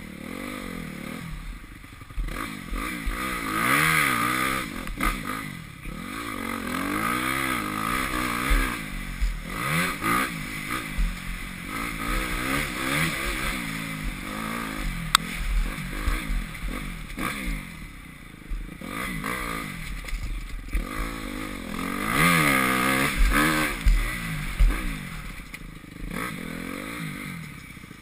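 Honda CRF250R's single-cylinder four-stroke motocross engine ridden hard on a rough dirt track, its pitch rising and falling again and again as the throttle is opened and closed through the turns and bumps. Now and then there are scrapes and knocks.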